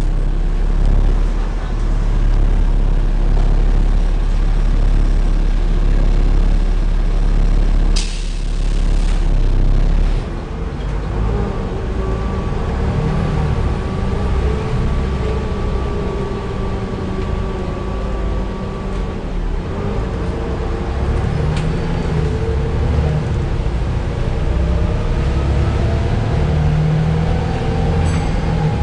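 Volvo B7TL double-decker bus heard from inside, running with a heavy low rumble and the engine cooling fan's hoover-like whine. A short burst of air hiss comes about eight seconds in; after about ten seconds the rumble drops and steady whining tones stand out, rising in pitch near the end.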